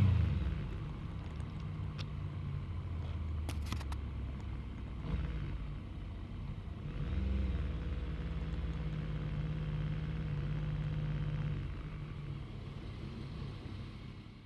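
Yamaha MT-09's three-cylinder engine coming off the throttle, then running steadily at low revs, with a couple of light clicks in the first few seconds. The engine note fades near the end.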